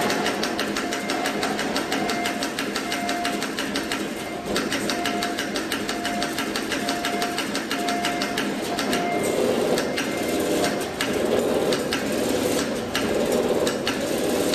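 Automatic CNC wire-bending machine running: a dense, fast mechanical clatter, with a short tone repeating for most of the first nine seconds.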